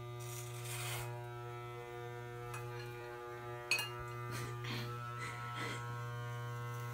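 Corded electric hair clippers running with a steady buzz while cutting hair close to the scalp, with a few brief louder scratchy bursts in the second half.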